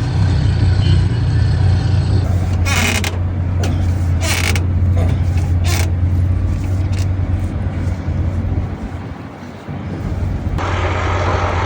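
A heavy engine running with a steady low drone. Short hissing bursts cut in three times in the first half, and a broader rushing noise starts near the end.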